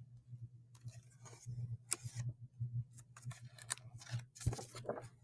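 Pages of a hardcover picture book being turned and handled: a scatter of faint paper rustles and crisp clicks, with a slightly longer rustle about four and a half seconds in.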